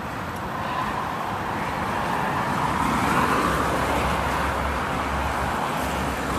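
Steady road traffic noise from the street, swelling slightly about three seconds in as a vehicle goes by.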